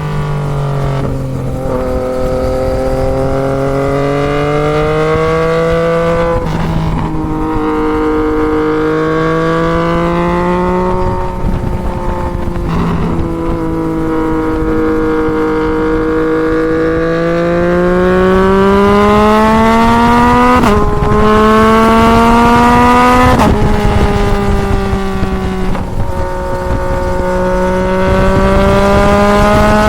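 Yamaha MT-09 three-cylinder engine through a full Toce exhaust, heard on the move. Its pitch rises and falls slowly, with about six brief breaks where the note jumps, over a steady wind rush.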